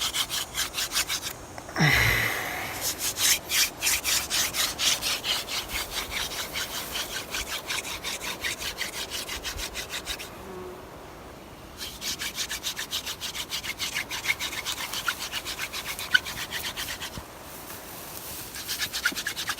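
Wooden hand-drill spindle spun between the palms in a fireboard notch: fast, even wood-on-wood rubbing as the friction builds heat for an ember. It breaks off briefly about a second and a half in, again around ten seconds in, and once more near the end.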